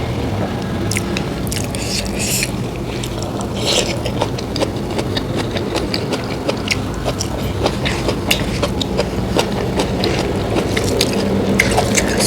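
Close-miked eating: a person chewing and biting food, with many short wet clicks and crunches, over a steady low hum.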